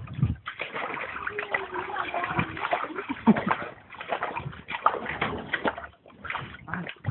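Pool water splashing and sloshing as Rottweilers paddle and thrash in a swimming pool, with irregular splashes that drop out briefly near the end.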